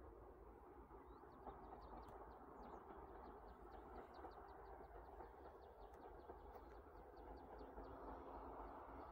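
Small birds chirping, a quick run of short high notes, over the faint low rumble of a 3TE10MK diesel locomotive approaching far off, slowly growing louder.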